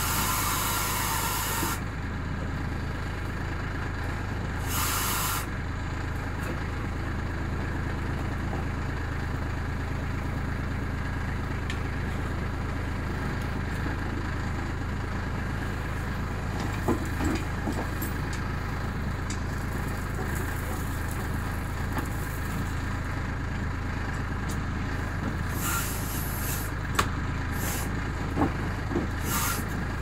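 Branson compact tractor's diesel engine running steadily as its rear backhoe digs frozen gravel, with short hisses of hydraulic oil through the valves at the start, around five seconds in and twice near the end. Scattered knocks of the bucket against gravel and stones come in the second half.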